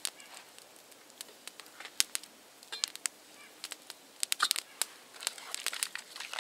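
Small wood campfire crackling with sharp, irregular pops, joined near the end by denser rustling and crunching as someone moves in the snow beside it.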